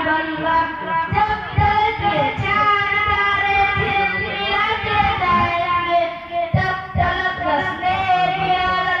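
A boy singing a naat, a devotional song in praise of the Prophet, into a handheld microphone, in long held notes that bend and waver in pitch.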